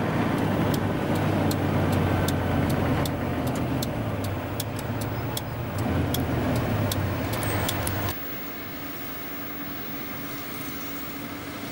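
Garbage truck's diesel engine running under way, heard from inside the cab, with a regular quick ticking of about two to three a second over it. About eight seconds in the sound drops suddenly to a quieter steady hum.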